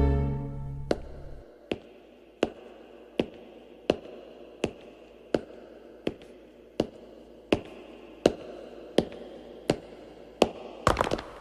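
Slow, evenly spaced footsteps, sharp single steps about three-quarters of a second apart, as someone walks a staircase. Near the end several footsteps start to overlap.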